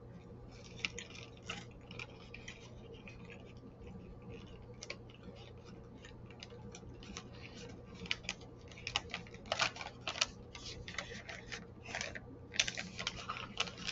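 Plastic snack wrapper crinkling and crackling as it is handled and folded, with scattered crackles at first and a busier run in the second half.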